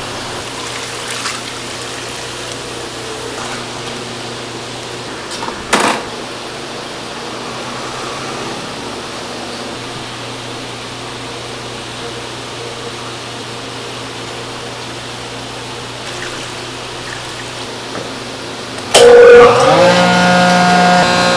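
Steady motor hum from workshop machinery, with a single sharp knock about six seconds in. About a second before the end, a much louder machine starts up with a steady whine.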